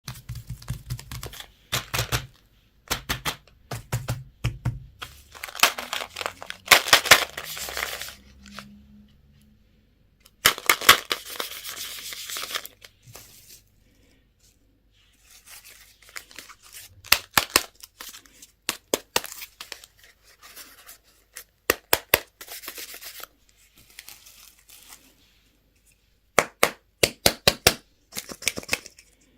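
Candy and toy packaging being torn open and crinkled. It comes in bursts of crackling with sharp clicks, and short pauses between.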